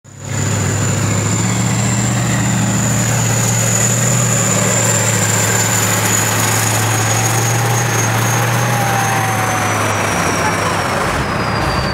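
Heavy armoured vehicle engine running steadily under load, a loud low drone with a thin high whine that slowly drops in pitch over the second half.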